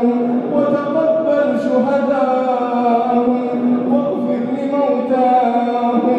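A man chanting an Arabic du'a (supplication) in long, drawn-out melodic notes, holding and gently bending each pitch.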